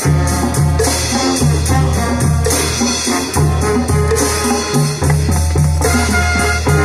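Marching band playing: brass and drums with a steady beat under sustained low bass notes.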